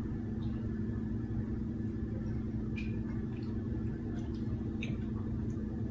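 A steady low hum with several constant tones, with a few faint short ticks about three and five seconds in.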